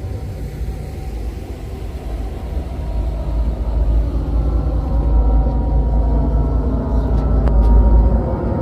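Jet engines of a Southwest Airlines Boeing 737 at climb power, a deep rumble that grows louder about three seconds in and is loudest near the end as the airliner climbs out overhead.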